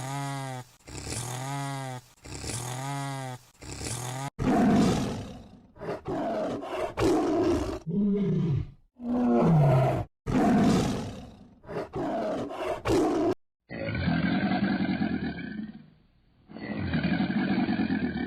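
Roars and growls of large predators, several separate recordings spliced together. First comes a run of repeated pitched calls about a second each. Then come deep rasping roars and growls with short gaps, and from near the two-thirds point two long, duller roars.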